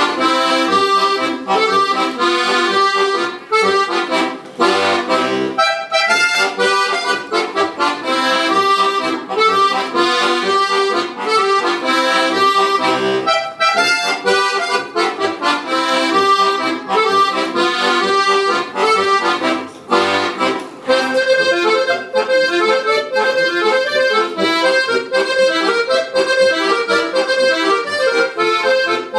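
Solo diatonic button accordion (a Fiser instrument) playing a lively tune: a quick right-hand melody over a steady pattern of bass notes, with brief breaks about five and twenty seconds in.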